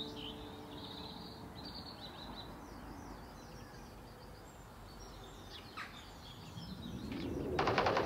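Quiet background with birds chirping in short calls. Near the end, music with a quick steady beat starts and grows loud.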